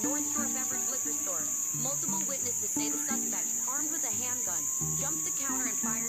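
Steady, high-pitched chorus of insects droning without a break, with many short chirping calls mixed in.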